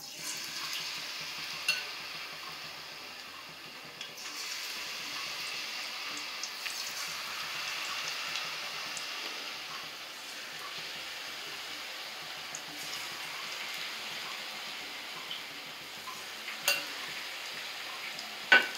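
Batter-coated cauliflower florets sizzling as they deep-fry in hot oil, the sizzle growing stronger about four seconds in as more pieces are dropped in one by one. A few sharp clicks stand out, one near the end.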